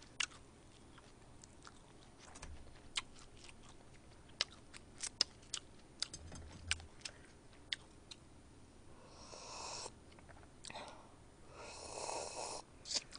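Quiet eating sounds close to a microphone: scattered small clicks of chewing, then two short rushing sounds about nine and twelve seconds in as a drink is sipped from a cup.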